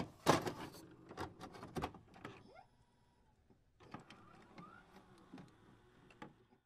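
Faint glitchy intro sound effect: scattered clicks and short whirring chirps, busiest in the first two seconds, a gap, then sparser ones again after about four seconds.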